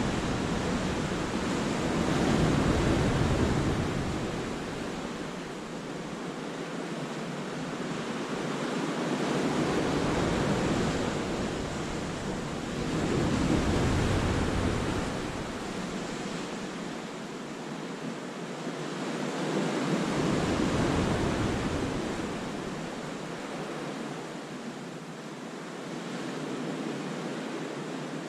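Sea waves crashing on the rocks and beach of a cove and washing back, in slow surges, with four louder breaks several seconds apart.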